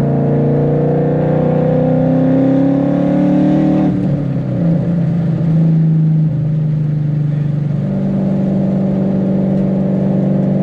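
Ford Mustang 5.0 V8 engine and exhaust heard from inside the cabin, rising in pitch under acceleration. About four seconds in the pitch drops suddenly, and the engine settles into a steady drone.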